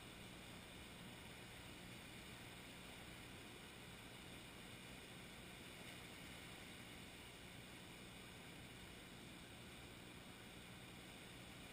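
Near silence: a steady, even hiss with a faint low hum underneath and no distinct events.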